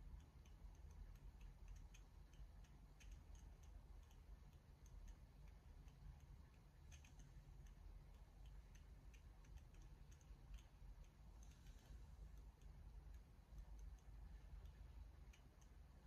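Near silence: room tone with a low steady rumble and faint, irregularly spaced ticks and clicks.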